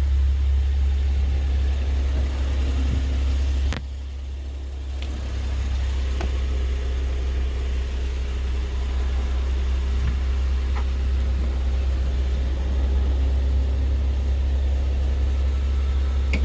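2000 Suzuki Jimny's engine idling steadily with a deep, even low hum. A click about four seconds in is followed by a dip in loudness that recovers over the next couple of seconds.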